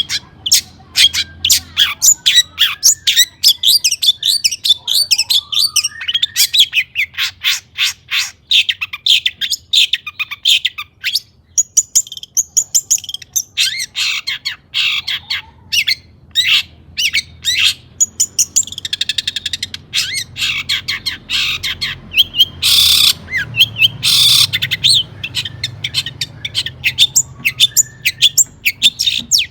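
Long-tailed shrike (cendet) in full song: a loud, rapid, varied chattering of chirps and trills that hardly pauses. About three quarters of the way through come two harsh rasping calls.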